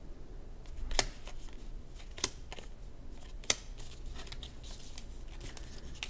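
Uno playing cards being handled and gathered into a stack: three sharp clicks about a second apart as the cards snap and tap together, with faint card rustling between.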